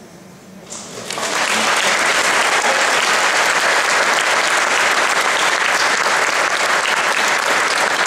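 Audience applauding: a few claps about a second in that quickly build into loud, steady applause.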